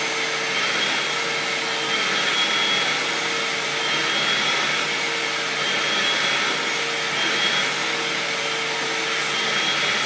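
Vacuum cleaner running steadily, its hose nozzle being drawn through a golden retriever's coat.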